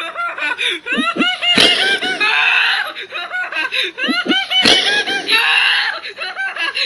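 A female voice laughing in rapid, high-pitched bursts that alternate with short shrill shrieks, the same pattern repeating about every three seconds as a looped sound effect, with a sharp click at each repeat.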